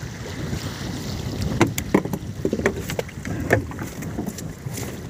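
Wind buffeting the microphone over a small boat's low rumble, with a string of sharp knocks and slaps in the middle as a kingfish is hauled over the side into a fibreglass boat.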